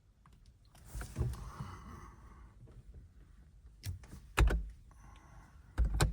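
A rustle about a second in, then a few sharp clicks and knocks, the loudest two near the end.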